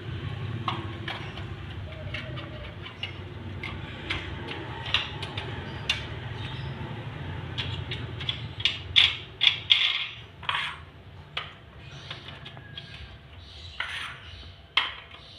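Hard plastic marble run pieces clicking and knocking as they are handled and pressed together, with a cluster of louder clacks about nine to ten seconds in, over a low steady hum.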